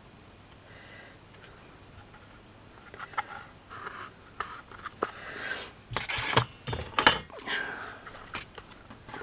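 Handling noise on a craft table: quiet at first, then from about three seconds in a run of clicks, scrapes and metallic clinks, loudest around six to seven seconds in, as chipboard pieces and a metal hand tool are picked up and set down.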